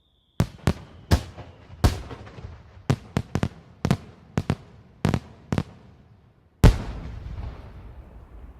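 Fireworks exploding: about a dozen sharp bangs at an irregular pace over some five seconds, then the loudest bang with a long echo that slowly fades.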